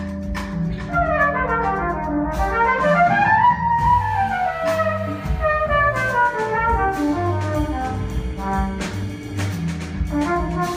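Jazz-fusion band and full orchestra playing live, the brass to the fore. Melodic lines climb for the first few seconds and then fall away, over bass notes and drum hits.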